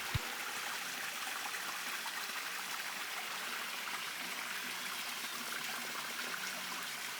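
Stream water rushing and splashing over rocks, a steady hiss with no break.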